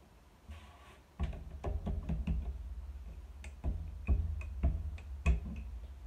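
A wooden rolling pin rolling out flatbread dough on a floured worktop: a low rumble from about a second in, with irregular sharp knocks as the pin strikes and rolls over the board. Before that, a faint hiss of flour being sprinkled.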